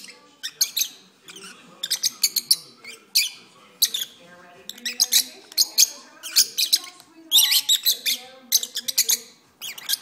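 A pair of peach-faced lovebirds chattering and singing: quick clusters of shrill chirps and squeaks that come in bursts with short pauses between them.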